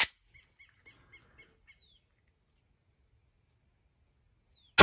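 A sharp clack right at the start, then a bird chirping rapidly for the first couple of seconds. Near the end comes a single loud, sharp shot with a ringing tail: a Taurus G3 9mm pistol firing a reloaded round.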